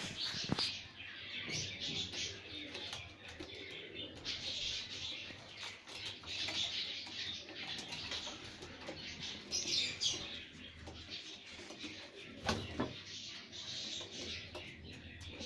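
A pair of quails chirping and calling without a break, with scattered clicks and rustles.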